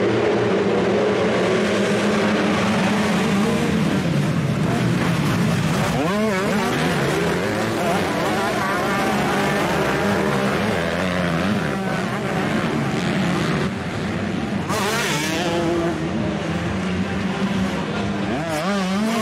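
A pack of motocross dirt bikes racing together, many engines revving over one another. The revs climb sharply about six seconds in and again near the end as the riders accelerate.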